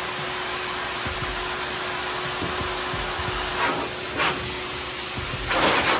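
Steady rushing noise with a thin hum, like a blower running, and three short hissing swishes in the second half; the last, near the end, is about half a second long and the loudest.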